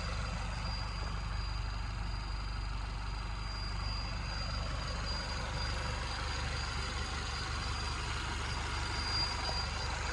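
Warm 1.4 TSI turbocharged four-cylinder engine (CAX) of a VW Scirocco running steadily at low revs, with a steady high-pitched whine over the engine sound. The owner places the whine near the water pump, hears it only with a warm engine below about 2,000 rpm, and does not know its cause.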